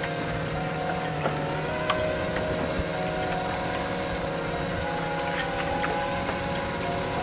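Quadcopter's electric motors and propellers whirring, picked up by the camera mounted on the drone: several steady tones that shift slightly up and down in pitch as the motors adjust speed, with a few faint ticks.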